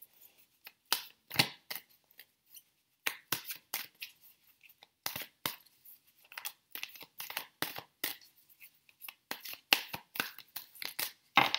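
A deck of tarot cards being shuffled by hand: quick, irregular papery slaps and rustles of cards sliding over one another, several a second, with a louder slap near the end.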